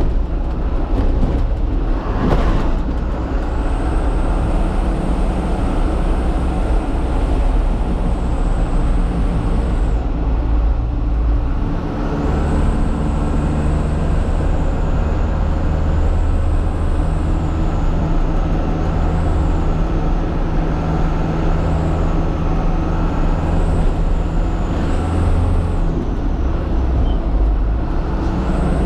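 Truck engine running steadily under way, heard from the cab, with its low drone changing pitch about twelve seconds in as the engine speed changes. A short noisy burst comes about two seconds in.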